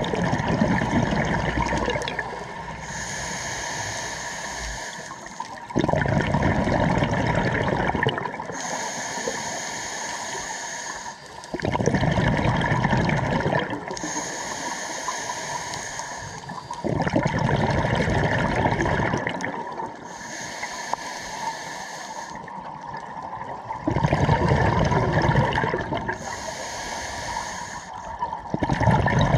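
Scuba diver breathing through a regulator underwater, about once every six seconds: a loud bubbling rush of exhaled bubbles, then a quieter hissing inhale.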